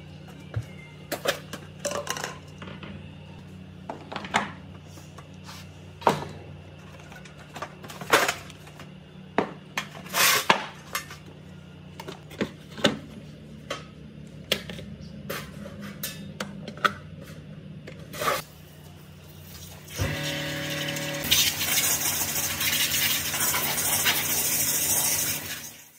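Sharp metallic clinks and knocks of metal parts being handled over a steady low machine hum. About 20 seconds in, a louder steady motor with hiss starts and runs until it cuts off suddenly.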